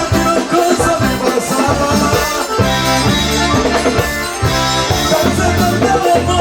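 Live band music without singing: an accordion over bass, drum kit and shakers keeping a steady dance beat.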